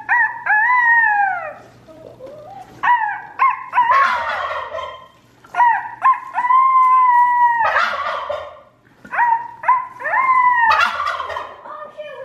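Turkeys calling: a run of short yelps and drawn-out held calls, broken about every four seconds by a rattling gobble.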